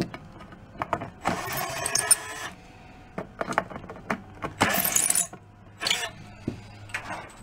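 Cordless screwdriver whirring in three short bursts as it backs screws out of the snare drum's hardware, with small metal clicks and clinks of the parts between the bursts.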